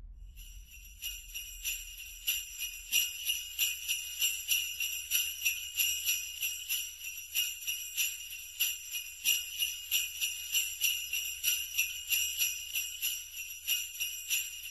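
Sleigh bells shaken in a steady rhythm, jingling with each stroke and building up over the first second or two.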